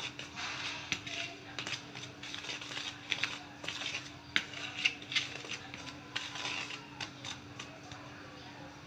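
Wire balloon whisk stirring dry flour mix in a plastic bowl: irregular scratchy ticks and rustling as the wires scrape the flour and the bowl, stopping about seven and a half seconds in. A steady low hum runs underneath.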